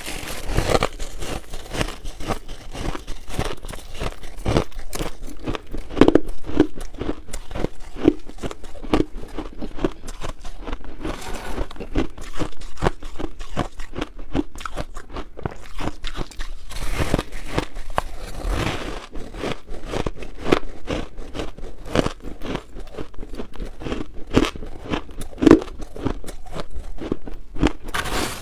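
Shaved ice being bitten and chewed: a continuous run of crisp, crackly crunches, with a few louder bites.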